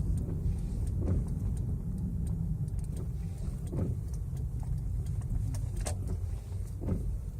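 Low, steady rumble of a Mazda 626 slowing down, heard from inside the cabin, with a few faint short clicks or swishes along the way.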